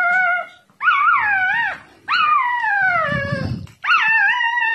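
Twenty-day-old puppy crying in a string of about four drawn-out squealing cries, each rising and then sliding down in pitch: the hungry cries of a nursing puppy hunting for a teat.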